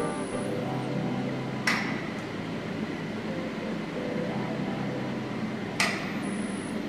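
Sawmill machinery running steadily, with two sharp metallic clanks about four seconds apart.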